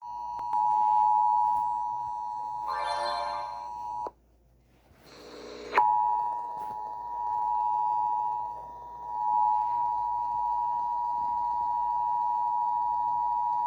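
Emergency Alert System two-tone attention signal: a steady dual tone just under 1 kHz, the alert that announces an emergency broadcast. It breaks off about four seconds in, a brief noisy rising sound follows, and the tone sounds again unbroken for about eight seconds until it cuts off.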